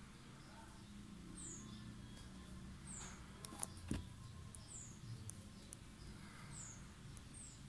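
Short, high-pitched falling chirps repeating about every second and a half, with a few sharp clicks near the middle.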